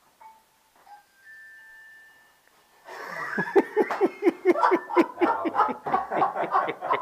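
Near quiet with a few faint short tones, then about three seconds in a burst of hearty laughter breaks out, a quick run of repeated 'ha' pulses that keeps going.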